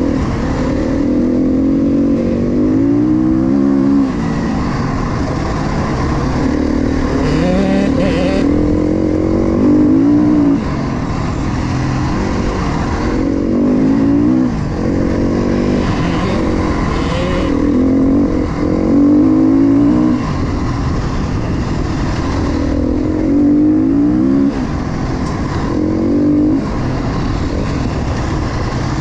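KTM dirt bike's single-cylinder engine under way on the throttle, its pitch repeatedly climbing and then dropping as it shifts through the gears, about every two to four seconds.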